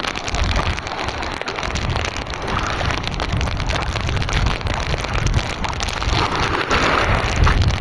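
Steady rushing noise of wind and choppy sea, with a patter of many small ticks through it.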